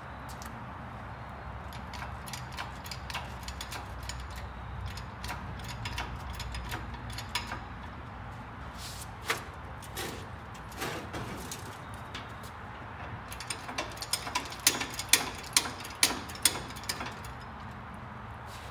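Engine hoist lifting a small-block Chevrolet V8 out of a car's engine bay: scattered metallic clicks and clanks from the hoist, its chain and the engine, bunching into a quick run of sharp knocks near the end, over a steady low hum.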